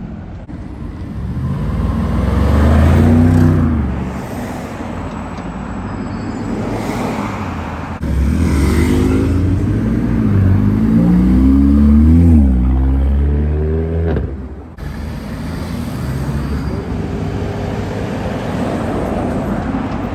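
Car engines accelerating past in road traffic. The engine note climbs and drops twice, loudest from about 2 to 4 s and from about 8 to 14 s, with steady traffic noise between and after.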